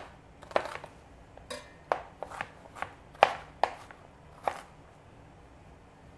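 Kitchen knife chopping an onion into a medium dice, the blade knocking on the board beneath in about ten uneven strokes. The chopping stops about four and a half seconds in.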